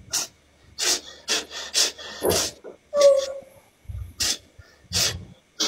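A person breathing hard: a string of short breathy gasps, about two a second, with a brief voiced whimper about three seconds in.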